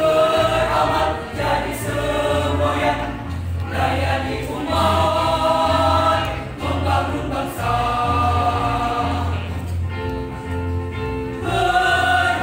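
Mixed choir of women and men singing a march in full voice, with a low, regular bass pulse underneath.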